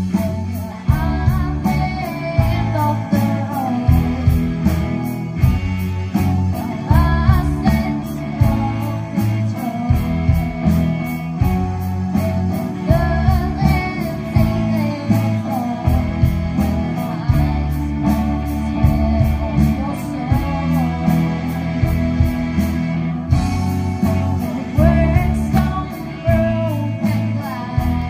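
Live rock band playing, with a girl singing lead over electric guitars, bass guitar, keyboard and a drum kit keeping a steady beat.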